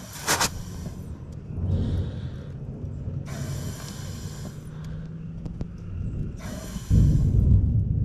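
Several bursts of compressed air hissing into a 6R80 automatic transmission's clutch passage to air-check the clutch, the longest burst about a second and a half in the middle; the clutch applies but does not reset. A loud low rumble sets in near the end.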